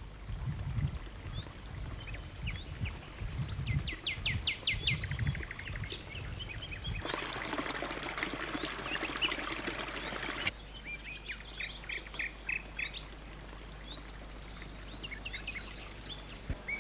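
Small birds chirping in short trilled phrases, with a low rumble under the first part. In the middle, water from a stone fountain splashes into its basin for about three seconds, then cuts off suddenly, and the chirping continues.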